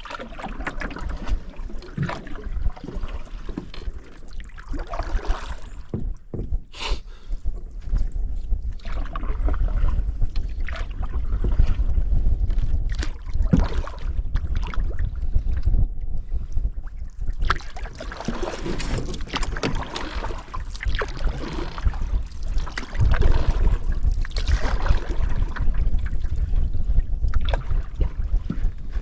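Canoe paddling on open water: paddle strokes splashing irregularly, under heavy wind noise on the microphone.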